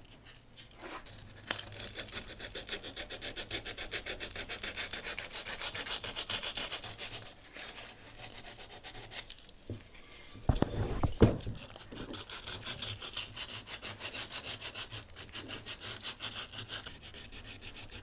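Folded sandpaper rubbed in quick back-and-forth strokes on a wooden axe handle just below the head, thinning the handle so the loose head can be seated further down. About halfway through, a couple of louder clunks as the axe is shifted on the wooden workbench.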